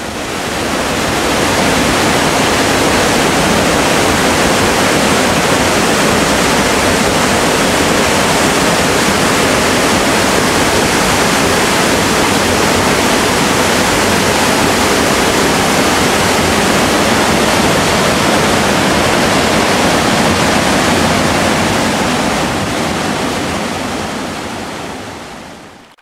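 Steady rush of a mountain waterfall and its cascading stream, fading in at the start and fading out near the end.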